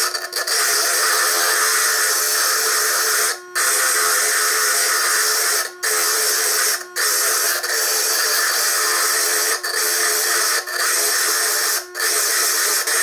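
Foredom bench lathe running a core drill that grinds a wet stone into a sphere: a steady high grinding hiss over a steady motor hum. It cuts out briefly several times, and the audio plays at triple speed.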